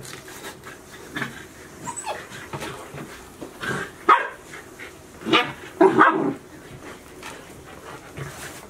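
Golden retriever puppies barking in play while tugging a toy with an adult dog. A few short, loud barks come about four, five and six seconds in, between quieter stretches.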